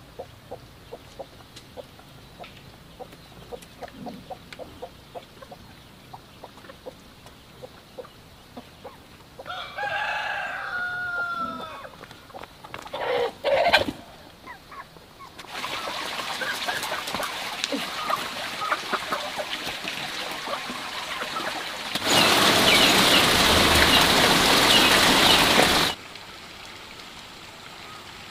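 Dry straw in a chicken nest box rustling and crackling as a hand gropes through it for eggs, then a rooster crows about ten seconds in, followed by a few sharp clicks. In the second half comes a steady noisy hiss with small chirps in it, much louder for about four seconds near the end, then cutting off suddenly.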